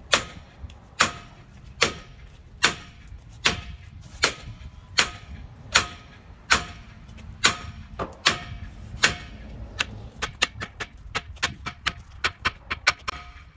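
Steady hammer blows on ringing steel, about one every 0.8 seconds, turning into quicker, lighter taps of three or four a second for the last few seconds. The hammering is on a truck's rusted-on wheel nut, to shock it loose.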